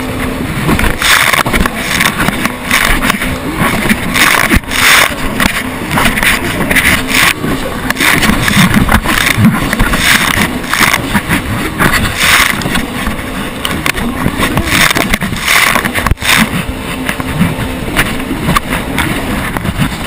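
Yamaha WaveRunner jet ski running at speed across choppy sea: a loud, uneven rush of wind and water spray with the engine underneath, and repeated knocks as the hull hits the waves.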